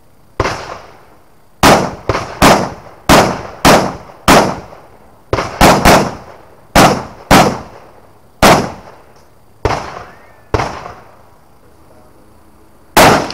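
Rifle fired about seventeen times at an uneven pace, single shots and quick pairs well under a second apart, each a sharp crack fading over a fraction of a second. After a pause of about two seconds, one last shot near the end.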